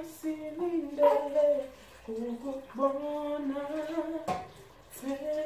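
A woman humming a slow tune in long held notes that step from pitch to pitch, with one sharp knock about four seconds in.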